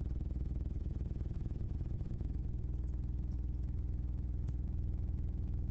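Steady low hum of background noise with a few faint clicks.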